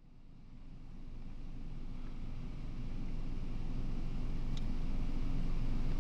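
Low, steady rumble of a car driving, heard as road and engine noise from inside the cabin, fading in gradually from silence.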